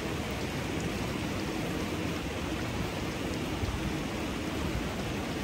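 Steady rush and splash of running water from a small cascade spilling over rocks into an outdoor hot spring pool.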